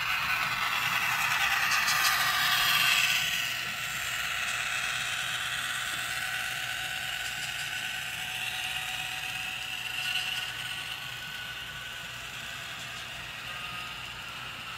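Model train running past: the model ES44 diesel locomotive's motor whirs loudest for the first three seconds or so as it goes by, then the double-stack container cars roll by with a lighter, steady clicking over the track.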